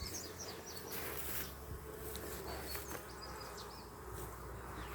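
Honeybees buzzing steadily around an opened nuc box.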